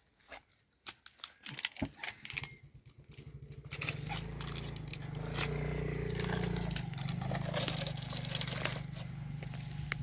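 Scattered clicks and scrapes, then a homemade bandsaw's drive starts up, its pulses speeding up, and runs on with a steady low hum and a rasping noise from about four seconds in.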